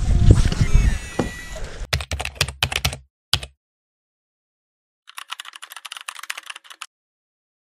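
Wind and handling rumble with a few sharp clicks during a cast, cutting off suddenly about three and a half seconds in. After a second of silence, a rapid run of computer-keyboard typing clicks lasting about two seconds: a typing sound effect.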